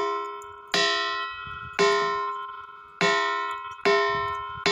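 A ringing rock, a boulder that sounds like a bell, struck five times at about one blow a second. Each strike gives a clear bell-like ring of several tones that dies away slowly until the next.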